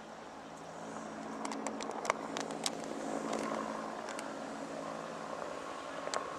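Propeller engine of a small aircraft droning steadily overhead, with a few sharp clicks about two seconds in and again near the end.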